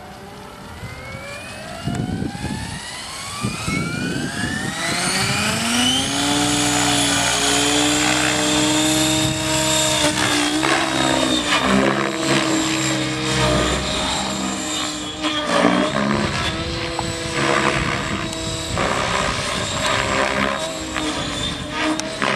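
Electric Trex 700 DFC radio-controlled helicopter spooling up, its motor and rotor whine rising steadily for about the first six seconds. It then runs at flying speed, the whine dipping and recovering in pitch several times under load during 3D flight, with rotor blade noise.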